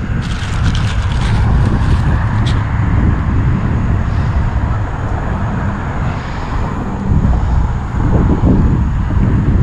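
Wind buffeting the microphone, a low rumble that rises and falls, over a steady rushing noise, with a few light clicks in the first couple of seconds.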